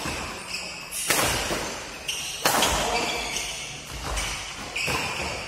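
Badminton rackets hitting a shuttlecock during a doubles rally, several sharp hits roughly a second or more apart, each echoing in a large hall.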